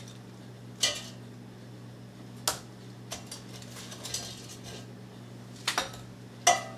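Metal tongs clinking against a nonstick air fryer basket and a glass bowl as chicken wings are picked out and dropped in: about six sharp, separate clinks spread over several seconds.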